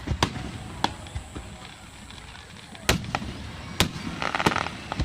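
Aerial fireworks shells bursting: five sharp bangs at uneven intervals, with a short burst of crackling just before the last bang.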